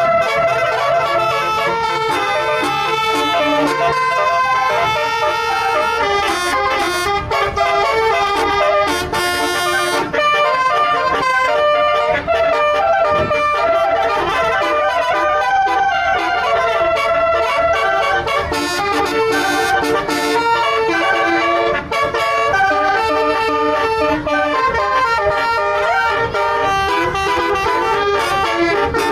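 Bus telolet basuri horn, a multi-tone musical horn, playing a melody of held notes that step up and down, without a break.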